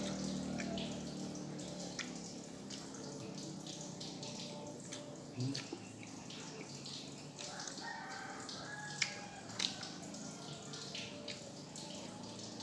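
Close eating sounds of a person chewing noodles and rice and smacking the lips: a steady run of small wet clicks, with two sharper clicks a little after nine seconds in.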